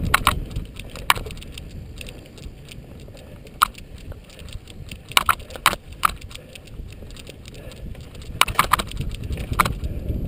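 Cyclocross bike ridden fast along a dirt forest singletrack: tyres rumbling over the ground with wind noise, and sharp clacks and rattles as the bike jolts over bumps, in clusters around the middle and again near the end.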